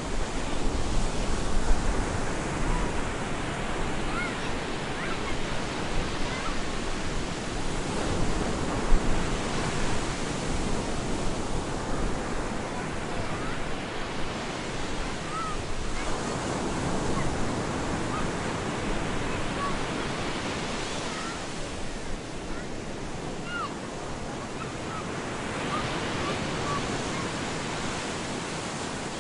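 Stormy sea surf breaking on a beach: a continuous wash of waves, swelling as a wave comes in about every eight to ten seconds.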